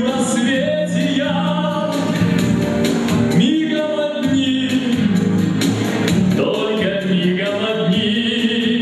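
A man singing into a microphone over instrumental accompaniment with a steady beat.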